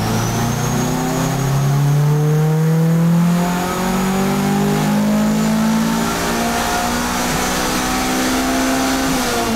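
Turbocharged Honda Civic VTi four-cylinder engine revving slowly and steadily upward under load, with a high whistle above it. The revs drop off sharply near the end as the throttle closes.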